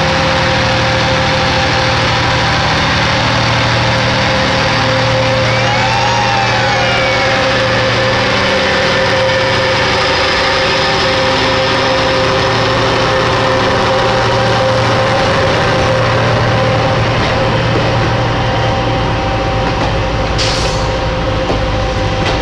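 Diesel engines of railway track machines (a Plasser & Theurer 08-32 Duomatic tamper and a USP 2005 SW ballast regulator) running loudly and steadily under a steady whine. A siren wail rises and falls briefly about six seconds in, and a short hiss comes near the end.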